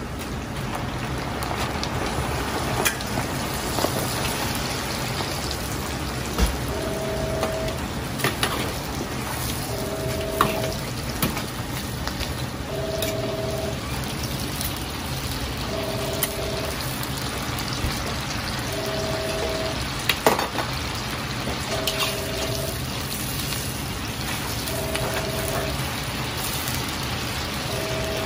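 Cabbage blanching in a carbon-steel wok of bubbling hot liquid over a running gas wok burner, a steady rushing hiss, with a few sharp clinks of the wire strainer ladle against the wok. From about a quarter of the way in, a two-note electronic beep sounds for about a second, every three seconds.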